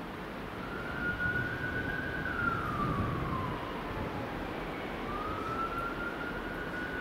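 Emergency-vehicle siren in a slow wail: the tone rises, holds high for a second or two, then glides down. It does this twice, over a low rumble.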